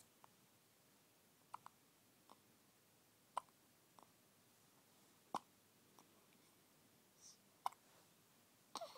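A baby hiccuping: four sharp hiccups about two seconds apart, with fainter short clicks in between.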